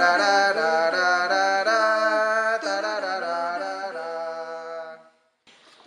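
Background music: a melody of long held notes that step in pitch, fading out about five seconds in.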